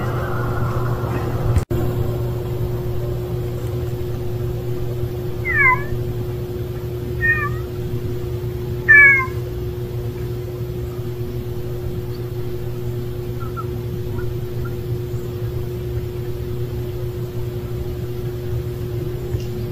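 A cat meowing three times in short calls a second or two apart, the last the loudest, over a steady low mechanical hum.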